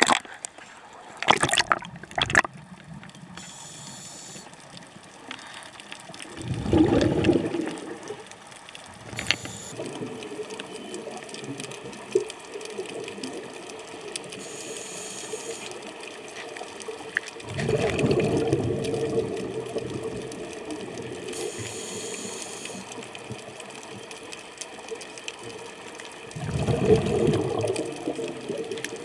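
Scuba breathing heard underwater through the camera: a short hiss from the regulator on each inhale, then a low rumble of exhaled bubbles, repeating about every ten seconds. A few sharp splashes come about a second in as the camera goes under the surface.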